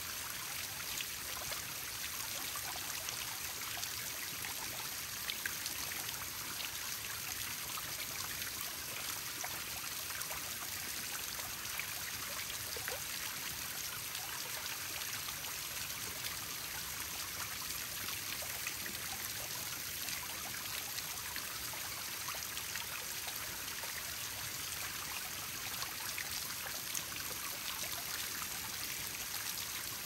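Small garden pond waterfall: water spilling steadily over stacked rocks and splashing into the pond, a bright, even splashing with a fine patter of drops.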